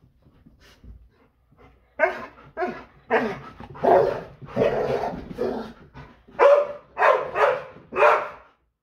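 Labrador retriever barking, about ten loud barks in a run starting about two seconds in, a few of them drawn out longer.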